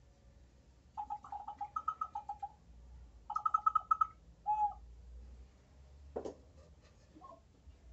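Peruvian ceramic whistling vessel (huaco silbador) shaped like a dog, tilted to and fro so the water inside pushes air through its whistle: hooting, warbling tones that flip between a lower and a higher note, in two runs of about a second and a half, then a single hoot. About six seconds in comes a single clay knock as the vessel is set down on the table.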